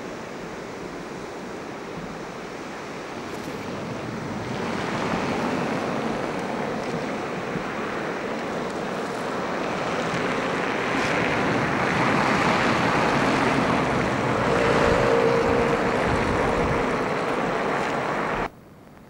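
Water rushing over a concrete river weir, a steady noise that grows louder about four seconds in and again later on, with wind buffeting the microphone. It cuts off suddenly near the end.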